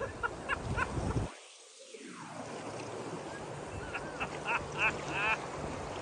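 River current rushing and lapping around a raft. The low water noise drops away for about a second just after the start. In the second half there is a run of short squeaky chirps.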